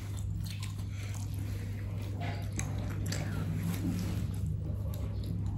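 People eating ramen noodles with forks: chewing and slurping, with small clicks and scrapes of forks on plates, over a steady low hum.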